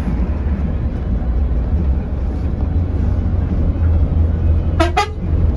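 Mercedes-Benz OH 1626 bus running on the road, heard from inside the cabin: a steady low engine and road rumble. Near the end come two brief pitched sounds.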